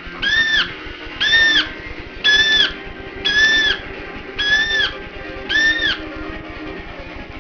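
A parrot screeching six times in an even rhythm, about one call a second, each call a short arched squawk, over background music.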